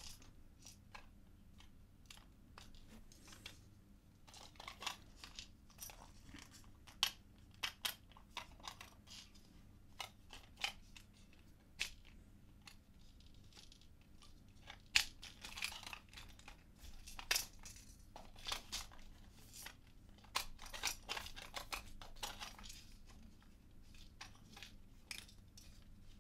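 3D-printed plastic puzzle box and a small plastic pin being handled: scattered, irregular light clicks, taps and scrapes of plastic parts sliding and knocking against each other, with a few sharper clicks.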